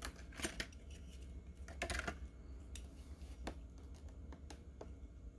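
Scattered faint clicks and crinkles of a Hot Wheels blister pack's clear plastic shell and the die-cast Twin Mill car being handled, with a few slightly louder clicks around the middle.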